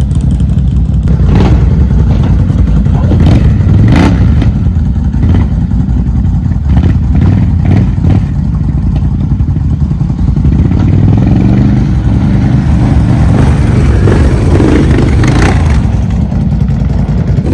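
Off-road vehicle engine running hard and revving up and down, with scattered knocks and clatter from the machine working over rough ground.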